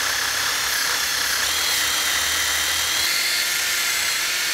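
Makita cordless drill spinning a wire wheel brush against a steel plate, scrubbing slag and loose spatter off MIG weld beads. Steady high motor whine over a harsh, scratching hiss of wire bristles on metal.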